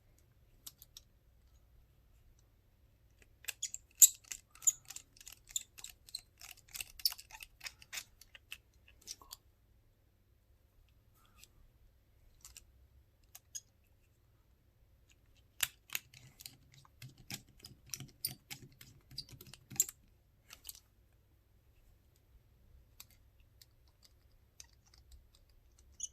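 Rapid small plastic clicks and ticks of a Samsung Gusto flip phone's housing being handled and fastened during reassembly, in two bursts of several seconds each with quiet between.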